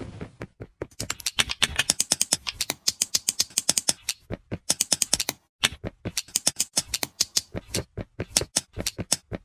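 Rapid plastic clicking, like Lego bricks snapping together, about six clicks a second, with a brief pause about five and a half seconds in. A rush of noise fades out at the very start.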